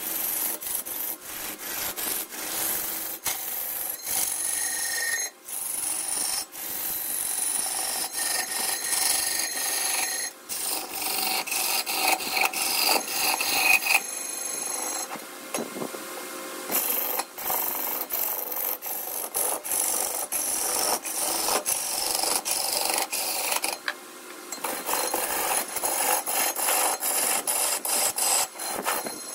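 Wood being turned on a lathe, a hand-held turning tool scraping and cutting the spinning workpiece. The sound is a continuous rasping scrape full of small clicks, with high-pitched squealing tones that shift and glide and brief pauses as the tool is lifted.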